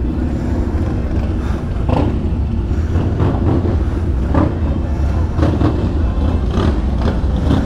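Motorcycle engines running in a steady low rumble, with crowd chatter on top.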